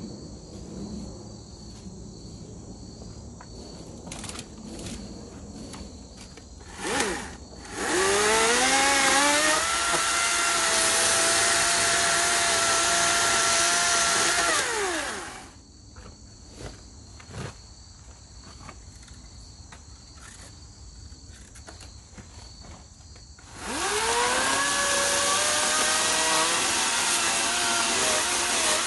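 Ego 56-volt brushless battery chainsaw running in two long spells: each time its motor spins up in a rising whine to a steady high pitch, the first run lasting about seven seconds and winding down, the second starting after a pause of about eight seconds, its pitch wavering near the end as it bites into wood. A brief blip of the trigger comes just before the first run, and insects trill steadily in the pauses.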